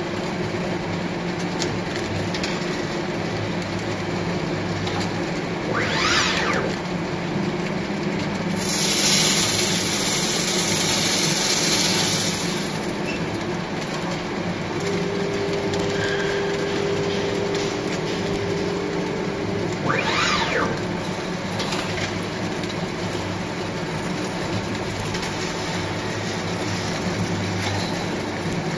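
Wave soldering machine running, its motors giving a steady hum under the rattle of the finger-chain conveyor. A loud hiss lasts about four seconds near the middle, and two short whooshes come about six and twenty seconds in.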